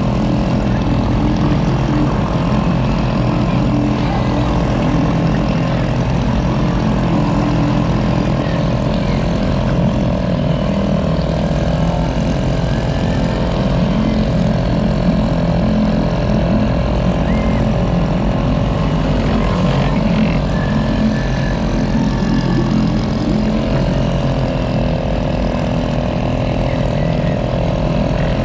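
Bumper boat's small engine running steadily at a constant pitch, with a slight dip in pitch near the end.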